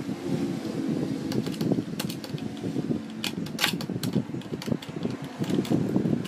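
Irregular light clicks and taps as a screwdriver and small connectors are handled on an LCD TV's metal chassis, with a sharper cluster about three and a half seconds in, over a steady low background noise.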